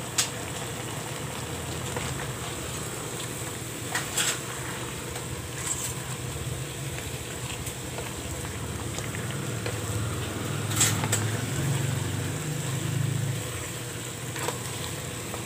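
Chicken pieces sizzling in a frying pan, with a few sharp clicks of a utensil against the pan and a spatula stirring near the end, over a low steady hum.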